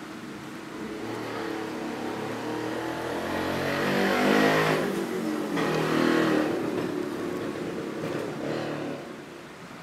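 A motor vehicle passing by, its engine sound building, peaking with its pitch rising and then falling about halfway through, and fading away near the end.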